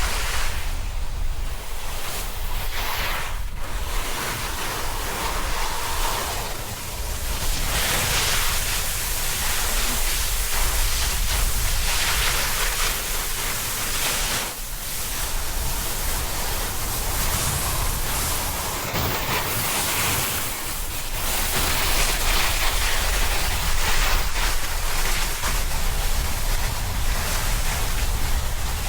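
Snowboard sliding and carving down snow, a continuous hiss that surges and eases with brief dips, over the low rumble of wind buffeting the action-camera microphone.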